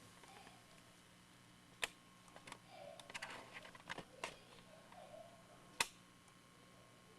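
A scattered series of light clicks and taps, with a sharper click about six seconds in, over quiet room tone.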